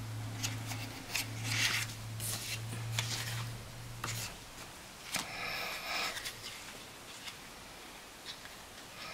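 Paper and sticker sheets being handled and shuffled: scattered light rustles, taps and scrapes, with a longer rustle about six seconds in. A low steady hum runs underneath and stops about four seconds in.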